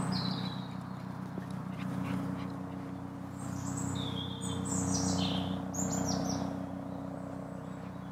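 Birds calling: a few short, high chirps that fall in pitch, mostly in the second half, over a steady low hum.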